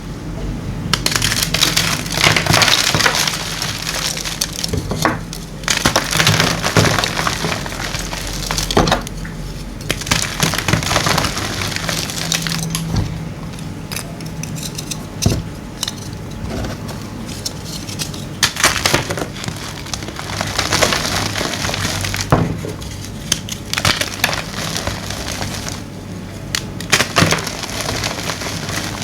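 Gym chalk being crushed, a dense crunching and crumbling in stretches of a few seconds with short pauses between.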